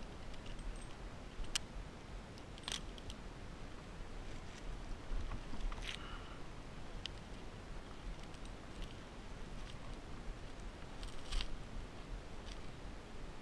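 Climbing hardware being handled: a handful of sharp metallic clicks and clinks from carabiners and rigging on the harness as the climbing rope is worked, over a faint steady hiss.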